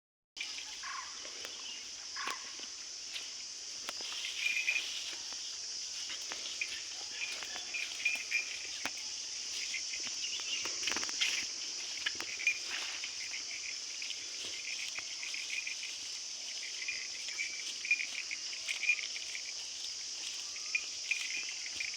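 Steady insect chorus, a continuous high-pitched buzzing, with repeated short chirps and scattered brief knocks.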